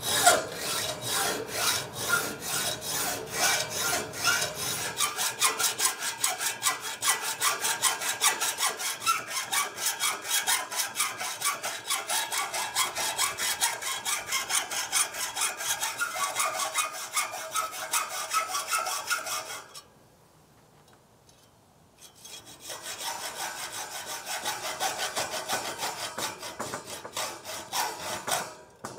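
Hacksaw with a new blade cutting through a metal tower leg tube, in quick, even back-and-forth strokes of about three a second. The sawing stops for about two and a half seconds a little past the middle, then goes on again until just before the end.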